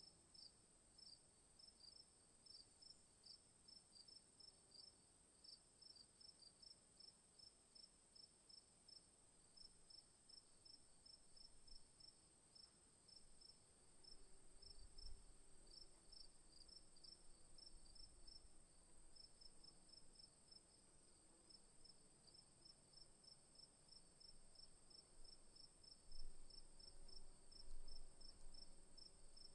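Crickets chirping faintly in a steady, even rhythm of several short chirps a second, over a continuous high insect drone. A few low bumps come through midway and near the end.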